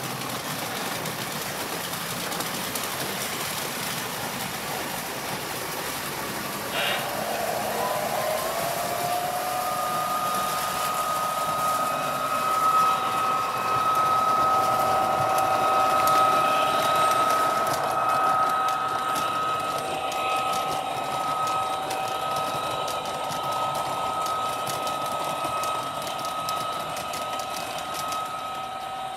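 Three-rail model trains running, a steady mechanical clatter. About a quarter of the way in, a high two-note whine sets in, rises briefly in pitch, then holds steady for the rest of the time.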